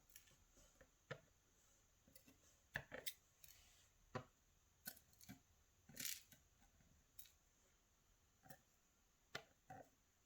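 Faint, irregular light clicks and taps of small metal lock parts, pins and springs, being handled and set down on a work surface.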